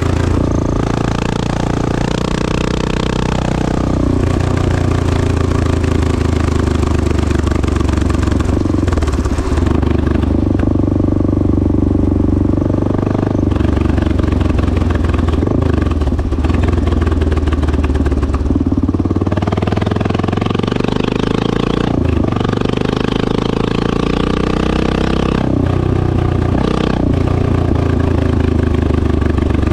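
1986 Honda XL600R's single-cylinder four-stroke engine running through a Devil stainless-steel exhaust. The engine speed shifts up and down, with a long rise in pitch about twenty seconds in.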